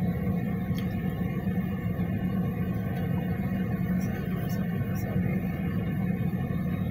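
Car interior noise while driving: the engine and tyres give a steady low rumble heard from inside the cabin.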